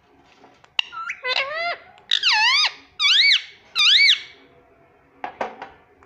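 Pet ring-necked parakeet vocalizing close up: a run of about five loud, squeaky whistled calls, each sweeping down and back up in pitch, followed by a few short sharp notes about five seconds in.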